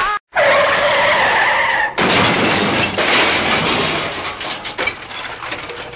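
Car tyres screeching for about a second and a half, then a sudden crash with shattering glass that fades away over the next few seconds.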